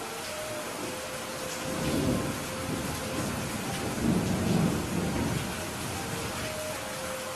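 Heavy rain falling steadily, with thunder rolling twice: a rumble about two seconds in and a louder, longer one around four to five seconds in.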